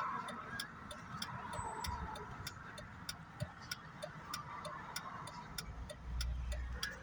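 A vehicle's turn-signal indicator clicking steadily, a few ticks a second, over the low rumble of the vehicle in motion, heard inside the cabin.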